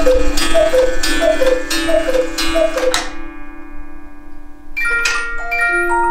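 Black Forest cuckoo clock calling its two-note 'cu-ckoo', high then low, about once every 0.7 s with a click on each call, striking the hour or half hour. The calls stop about 3 s in and ring away. Near the end the clock's music box starts plucking a tune.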